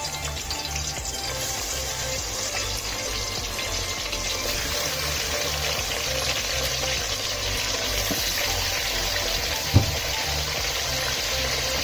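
Chicken pieces frying in hot oil, a steady sizzling hiss, over background music with a low bass line. A single brief thump near the end.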